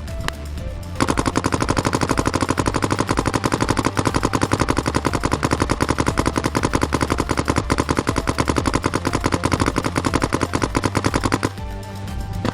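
Paintball marker firing a long, rapid, evenly spaced string of shots for about ten seconds, starting about a second in and stopping near the end, over background music.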